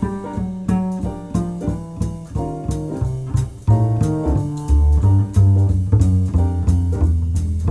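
Background music: an upbeat jazzy instrumental with piano, guitar and double bass over a steady beat.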